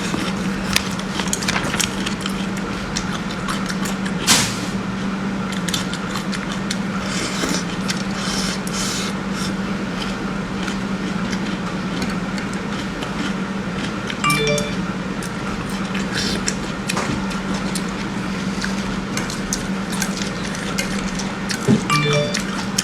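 A steady low engine hum with frequent clinks and clatters of pots, dishes and utensils over it, and a sharper knock about four seconds in.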